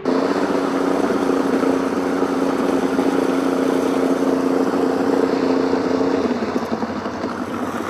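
Outboard motor of an inflatable boat running steadily, a constant engine hum over motor and water noise. The hum drops out about six seconds in, leaving a rougher noise.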